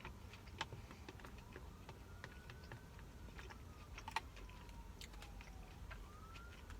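Faint eating sounds: soft, scattered clicks and small crunches of chewing a crunchy sushi roll, spaced about a second apart.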